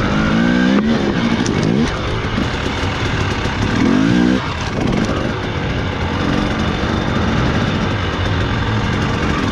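Enduro dirt bike engine running hard and revving in repeated throttle bursts. The pitch climbs sharply and cuts off about a second in and again around four seconds in.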